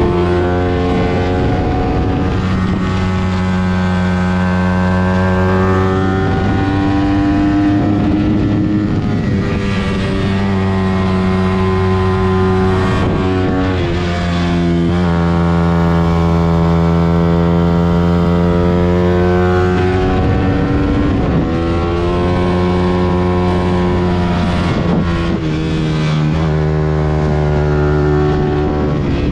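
Suzuki GSX-R150's single-cylinder four-stroke engine running under way, its pitch rising and falling smoothly over several seconds at a time, with long steady stretches in between.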